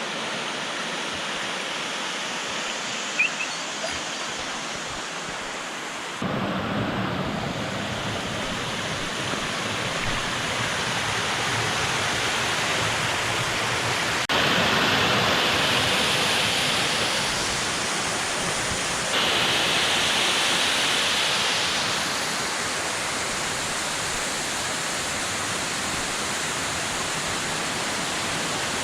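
Rushing water of a creek and its waterfalls: a steady hiss that jumps in level and tone several times, about 6, 14 and 19 seconds in. A brief sharp click about 3 seconds in.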